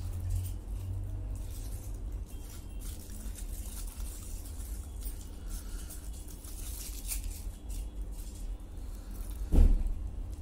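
Close-miked chewing of a bite of chicken roll: faint wet mouth clicks over a steady low hum, then a single sharp thump near the end.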